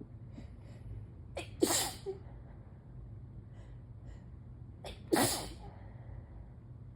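A person sneezing twice, about three and a half seconds apart. Each sneeze is a quick catch of breath and then a loud burst. They are allergy sneezes.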